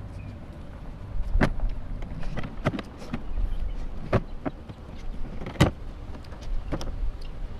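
Scattered knocks and clicks, about seven in all, from kayak gear being handled and set up, over a steady low rumble.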